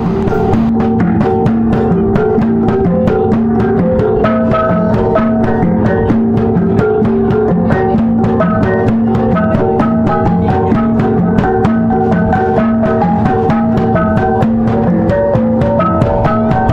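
Background music of a Kadazan gong ensemble (magagung): several pitched gongs struck in a quick, steady, repeating rhythm.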